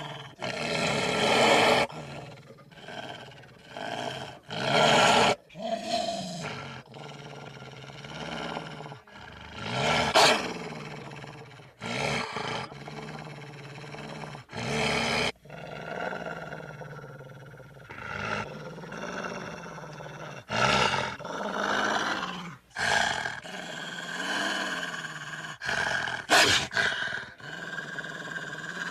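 A cartoon wolf's vocal sound effects: a series of separate growls and snarls, played one after another with short gaps between them.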